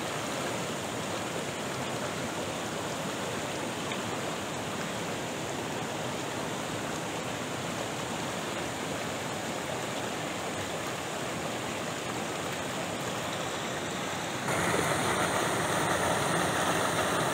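Fast-flowing rocky river rushing steadily over stones. About fourteen seconds in it turns suddenly louder and brighter: a small cascade pouring between boulders close by.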